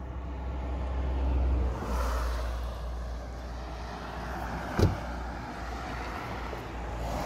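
Road traffic passing by, a swelling rush over a steady low rumble. About five seconds in comes a single sharp thud of a car door being shut.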